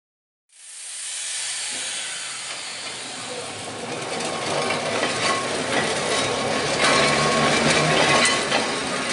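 Manx Electric Railway Car 1, a Victorian electric tramcar, running along narrow-gauge track: a steady hiss with a faint motor hum that fades in about half a second in and grows louder as the car comes closer, with the wheels clicking over rail joints in the second half.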